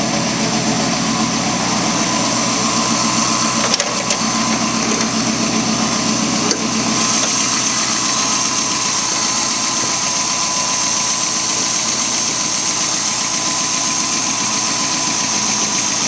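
A Ford 302 small-block V8 with full-length headers idling steadily, with an even low pulse. Two brief clicks, about four seconds in and again a couple of seconds later.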